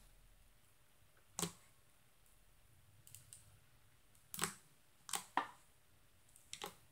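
Black face-mask slime being pressed and poked by hand on a board, giving off short sharp clicks and pops at irregular times, about half a dozen, with a pair close together past the middle.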